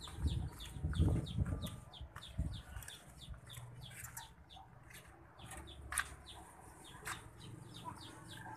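Chicks peeping, a steady run of short, high, falling cheeps about four a second. There are a few low thumps in the first couple of seconds and two sharp clicks later on.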